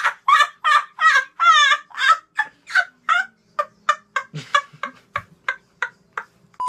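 A boy laughing hard in a long run of rapid, pitched 'ha-ha' bursts, about three to four a second, which grow shorter and fainter over the last few seconds and then stop.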